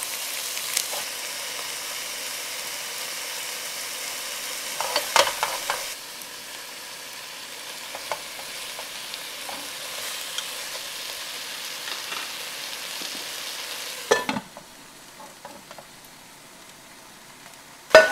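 Catfish pieces sizzling as they fry in oil in a pot, stirred with chopsticks, with short clatters against the pot about five seconds in and again about fourteen seconds in. After the second clatter the sizzle turns quieter, and a loud knock comes right at the end.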